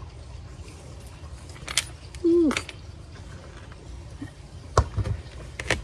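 Metal hanging-basket chain and hooks clinking in a few sharp clicks as they are handled. About two seconds in, a short falling hum is the loudest sound.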